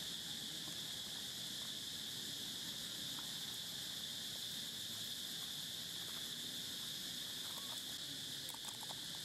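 Steady high-pitched drone of insects, even and unbroken, with a few faint ticks near the end.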